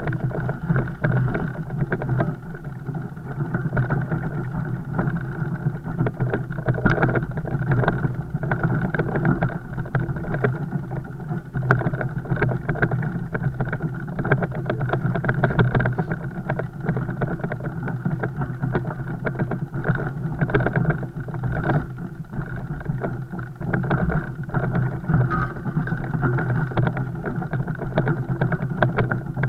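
Fat bike riding noise: a steady rumble with frequent small knocks and rattles.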